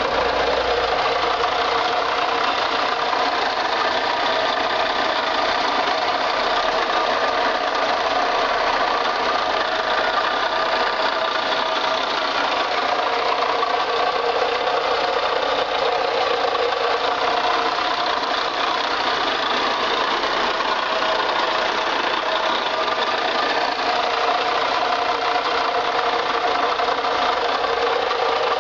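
VAZ-21214 1.7-litre four-cylinder engine running steadily, with a foreign noise from a water pump bearing that has worked loose and developed play.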